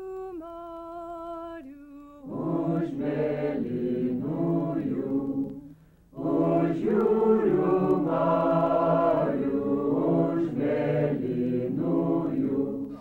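A choir singing, beginning with a single held line that steps between a few notes before the full group of voices comes in about two seconds in; the singing breaks off briefly about six seconds in and then goes on.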